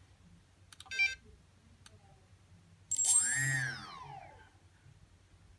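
EMAX MT2204 II 2300KV brushless quadcopter motor, with no propeller fitted, spinning up and winding down once about three seconds in: a whine that rises and then falls in pitch over about a second and a half. A short beep comes about a second in.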